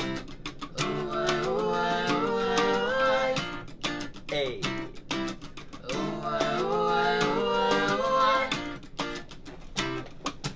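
Acoustic guitar strummed while a man sings two long wordless vocal runs over it. A tapped can keeps the beat as percussion.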